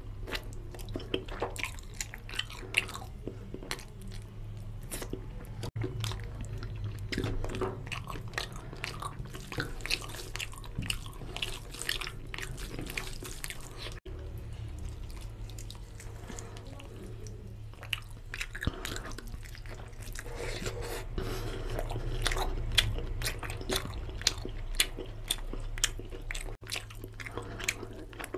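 Close-up chewing and biting of chicken curry and rice eaten by hand: wet mouth smacks and short clicks over a steady low hum.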